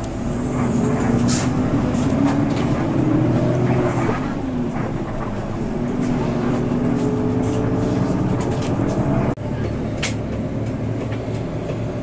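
Coach bus engine and road noise heard from the driver's cab, the engine note rising and falling as the bus drives. About nine seconds in the sound breaks off sharply and steadier vehicle noise follows.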